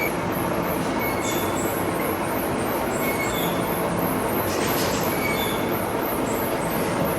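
Metal-cutting machine tool running steadily, with a short high squeal roughly once a second as the cut goes on.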